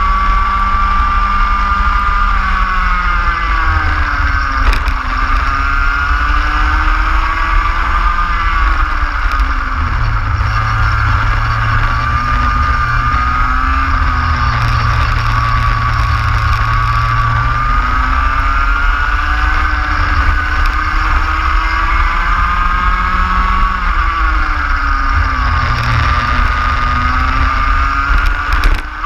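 Racing kart engine heard onboard, its revs climbing along the straights and dropping sharply into the corners several times, over a steady rushing noise.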